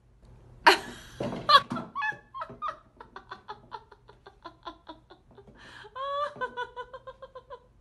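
A person laughing in a long run of short, quick bursts, rising to a higher held laugh near the end. Two loud sudden noises come about a second in.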